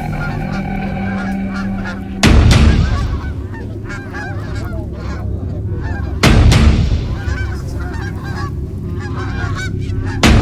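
A flock of Canada geese honking, many overlapping calls, as they circle and drop in to land. Three sudden loud booms, about two, six and ten seconds in, each fading over about half a second.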